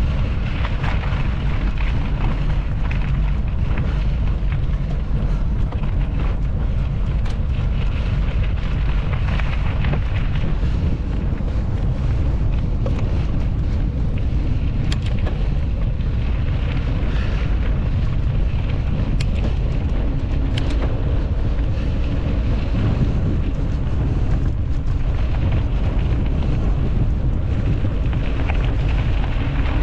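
Wind buffeting a GoPro Hero11 Black's microphone during a mountain bike ride, heard as a steady low rumble, with trail hiss and a few sharp clicks from the bike.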